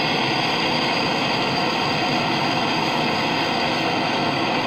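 Bernzomatic hand torch on a yellow MAP-Pro cylinder burning with a steady hiss, its flame kept on the delft clay mould as molten fine silver is poured from the crucible.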